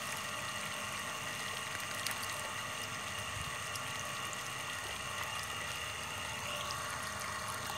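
Homemade 12V axial push pump, a 775 DC motor turning a tin propeller in plastic pipe, running steadily with a constant whine while water gushes from its outlet pipe.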